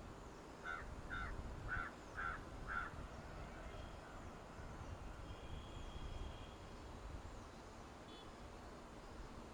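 A crow cawing five times in quick succession, about half a second apart.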